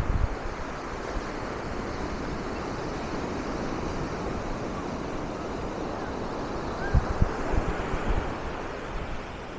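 Steady wash of surf breaking on a sandy beach, with wind buffeting the microphone in brief low thumps about seven to eight seconds in.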